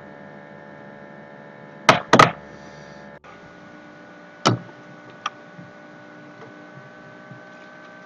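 Steady electrical hum from the repair bench, with a few sharp knocks and taps as the board and tools are handled: two close together about two seconds in, then one more a couple of seconds later and a lighter one after it.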